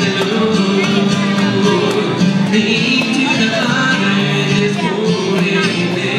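Two acoustic guitars strummed in a country/bluegrass style, with a man singing over them.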